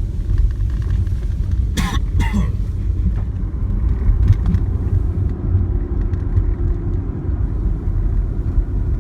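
Steady low rumble of a car driving slowly, heard from inside the cabin. Two brief, sharp vocal-like sounds come about two seconds in.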